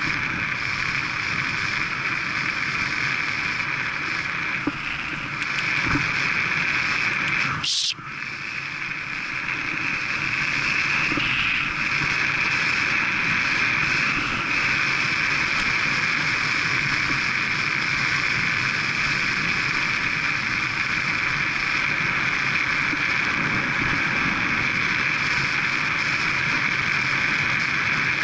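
Steady rush of wind over the camera microphone of a bicycle ridden at about 22 to 27 mph, with road and tyre noise beneath. A sharp click about eight seconds in, after which the noise briefly drops.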